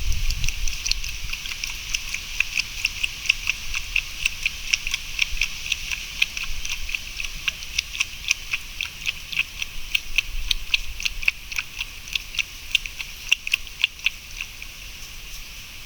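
Steady high-pitched insect buzz with rapid, irregular ticks several times a second, thinning out near the end. A low thump right at the start.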